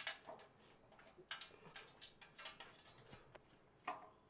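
Faint, irregular light clicks and taps of a powder-coated steel underbody protection plate being shifted and lined up against the vehicle's underside by hand.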